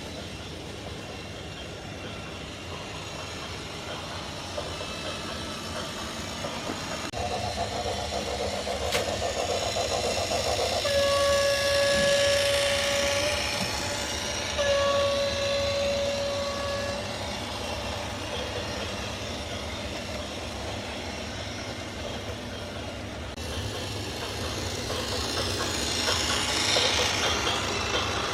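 Continuous heavy vehicle noise with a horn sounding two long blasts on one steady pitch, the first about eleven seconds in and the second a second later.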